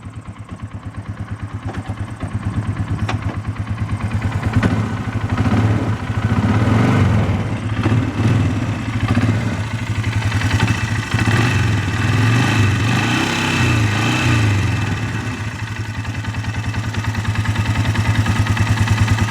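Polaris Sportsman 500 H.O. ATV's single-cylinder engine idling with even pulses, revved up and down several times for about ten seconds, then settling back to idle near the end. The owner hears a knock at idle, which he takes for normal CVT clutch noise, and a harder, deeper knock under load that he suspects is piston or rod slap.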